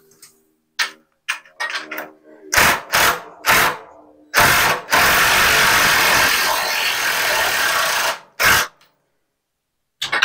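Cordless drill driving a fastener up into an overhead beam. It starts with a few short trigger pulses, then three brief runs, then one long run of about four seconds that stops suddenly, and ends with a last short burst.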